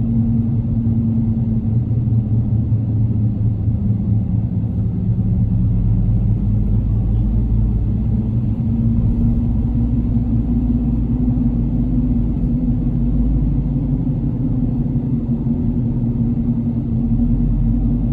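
A car driving at a steady speed, its engine and tyres making a continuous low rumble with a steady hum.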